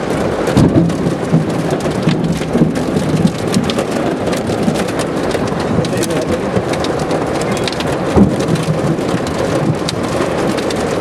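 Heavy storm rain pelting a car's roof and windshield, a steady dense patter of many sharp taps heard from inside the cabin, a few hits standing out louder.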